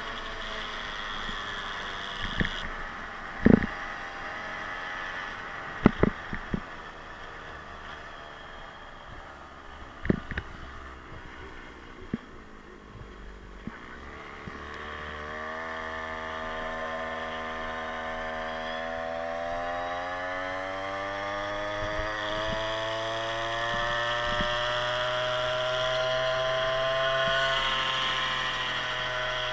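52cc big-bore two-stroke scooter engine running while riding. It eases off to a lower note with several sharp knocks in the first ten seconds, then revs up in a long steady rise from about halfway as the scooter accelerates, dropping back slightly near the end.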